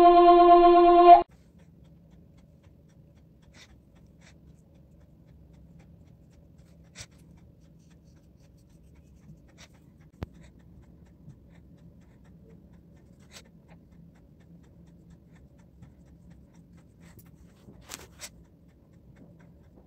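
A held, flute-like music note that breaks off about a second in. Then faint handling sounds of a brush and sketchbook paper: scattered light taps and scratches, with two sharper clicks near the end.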